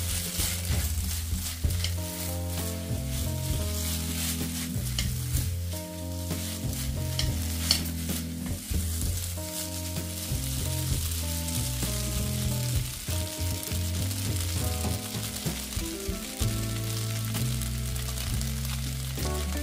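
Food sizzling in a hot pan as it is stir-fried, with a cooking utensil clicking and scraping against the pan. Underneath run low held musical notes that change step by step.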